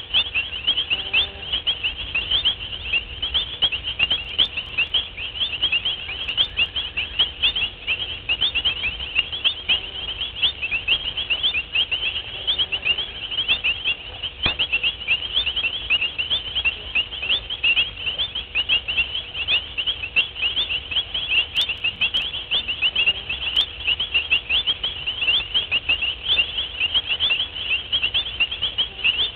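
A dense night chorus of small calling animals: rapid, high-pitched chirps, many each second, overlapping in a steady wash, over a faint low rumble.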